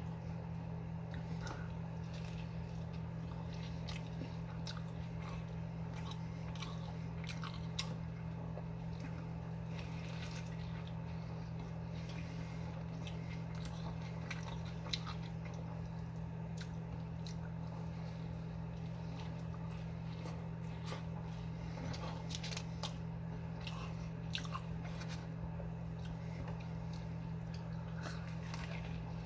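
A person biting and chewing fast food close to the microphone, with short crunchy bites and mouth clicks scattered throughout, over a steady low hum.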